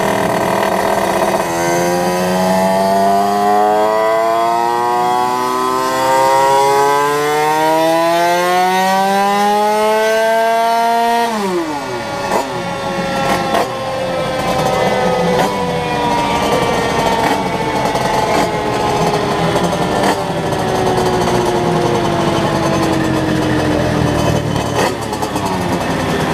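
Gilera SMT's two-stroke engine, fitted with an 80 cc Malossi MHR Team 7T cylinder kit, making a full-throttle power run on a rolling-road dyno. Its pitch climbs steadily for about ten seconds, then drops sharply when the throttle is shut, followed by a long, slowly falling tone as it coasts down.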